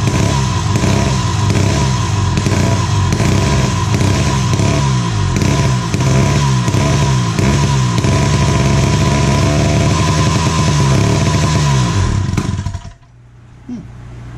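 Wright B-520 reciprocating saw's 115 cc two-stroke engine running on the bench, its speed rising and falling over and over as the throttle is worked. It cuts off suddenly near the end.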